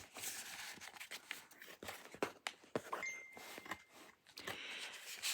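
Faint paper and card handling: pieces of ephemera rustling and scraping against each other and the journal pages, with many small irregular clicks.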